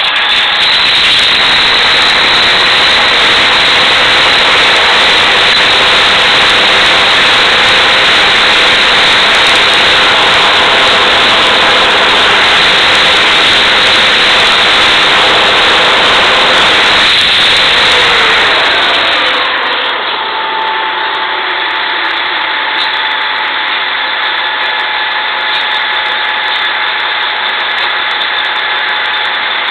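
Drilling rig floor machinery running loud and steady: the rig's engines and hoisting equipment. About two-thirds through, something winds down with a falling pitch and the noise settles to a lower, steady hum.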